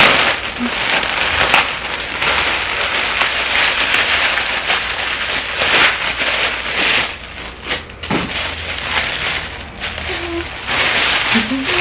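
Package wrapping being torn open and crinkled by hand, a dense crackle that comes in uneven stretches with brief pauses.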